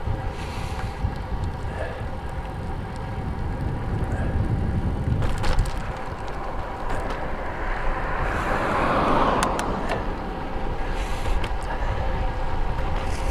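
Wind buffeting the microphone of a camera on a moving road bike, over steady tyre and road noise, with a few sharp rattles of the bike. A louder rush swells and fades about eight to ten seconds in.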